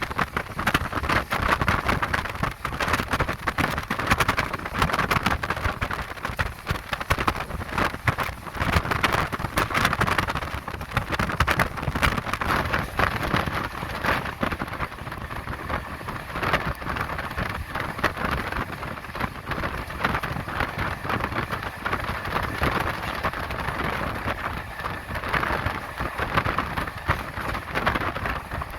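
Express passenger train running at speed, heard from on board: a steady rush of wheel and wind noise with constant rapid clicking and rattling from the wheels on the track.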